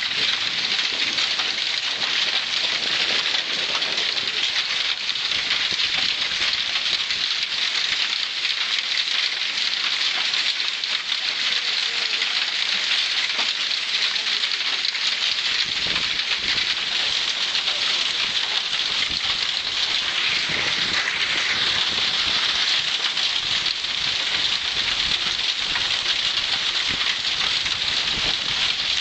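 Heavy storm rain pelting down: a dense, steady hiss of drops hitting a surface. Heavier low thuds join from about halfway through.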